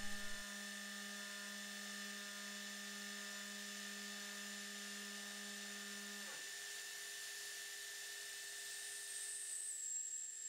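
Benchtop CNC milling machine running a chamfering pass with a 4-flute chamfer mill: a steady whine of several tones. About six seconds in, the lowest tones stop with a brief downward glide, and a high tone rises and settles near the end.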